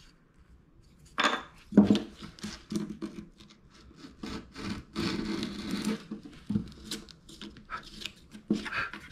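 A chisel scraping and paring thin curls off the edge of a small piece of light wood, a string of short irregular scraping strokes with a few knocks as the piece is handled, starting about a second in.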